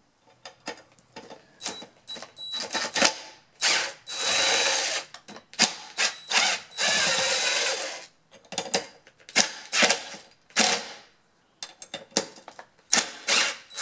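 Cordless drill/driver backing out the screws that hold the cover plates over a two-stroke leaf blower's muffler. It runs in several short spurts and two longer runs of a second or two, about four and seven seconds in, with clicks and knocks of the bit and screws in between.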